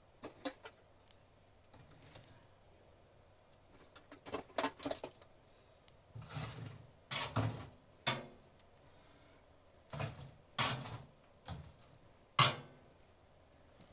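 Hard objects being handled and knocked together: about a dozen irregular knocks and clatters, some in quick clusters, with the sharpest single hit near the end.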